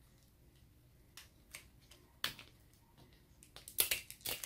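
Hands handling and prying at a plastic L.O.L. Surprise ball and its wrapping: scattered small plastic clicks and crinkles, sparse at first, then busier and louder near the end.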